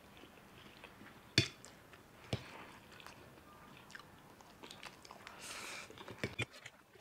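Two people eating chow mein noodles: quiet chewing, with a few sharp clinks of forks on steel plates, the loudest about a second and a half in, and a short slurp of noodles near the end.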